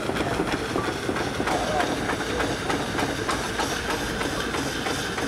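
Steam machinery of the Crossness beam pumping engine at work: a steady hiss of steam under irregular clanks and clicks from the moving gear.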